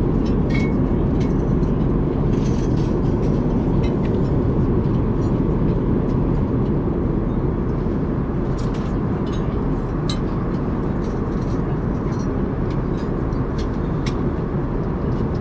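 Steady low roar of an Airbus A380's cabin in cruise flight, with a few faint small clicks and taps over it.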